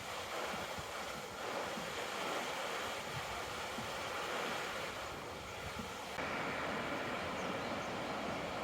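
Steady rush of a mountain river flowing over rocks. The rushing shifts slightly in tone and level about six seconds in.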